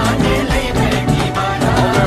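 Loud song music with a steady beat and a melody line, accompanying a stick dance.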